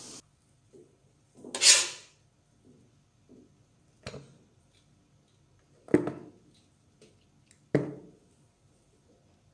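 Metal spoon scraping and knocking against an aluminium steamer pot while potato chunks are scooped out: one longer scrape about one and a half seconds in, then three sharp knocks roughly two seconds apart.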